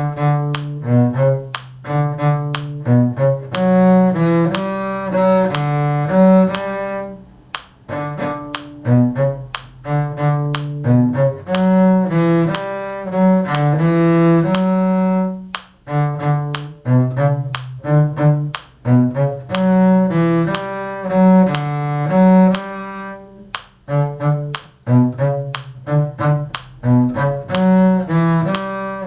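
A bowed string instrument playing the middle line of a tune in 6/8 and D major, one note after another in phrases of about eight seconds with short breaks between them.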